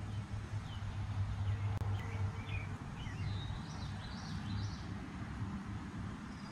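Bumblebee buzzing with a low, steady hum, with short bird chirps in the background during the first few seconds.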